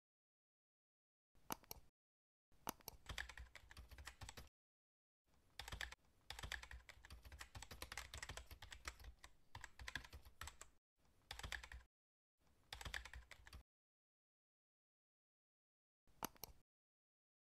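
Computer keyboard typing in several bursts of rapid key clicks, separated by dead silence. A short click comes about a second and a half in and another near the end.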